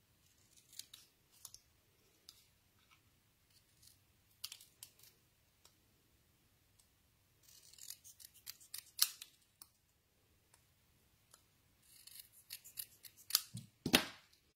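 Small craft scissors snipping through card stock: scattered short, sharp snips in little clusters as a narrow strip of black card is trimmed. Near the end comes a louder knock as the scissors are set down on the desk.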